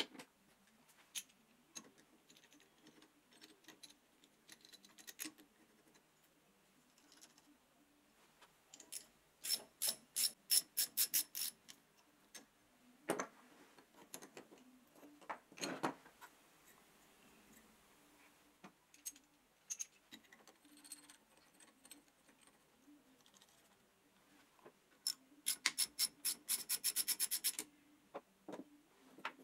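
A steel two-jaw bearing puller handled on a wooden bench: clicks, knocks and scraping as its jaws and bolts are adjusted. Twice there is a run of rapid, even ticking lasting two or three seconds.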